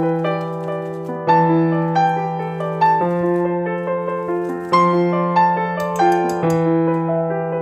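Piano music: notes struck about once a second over held low notes.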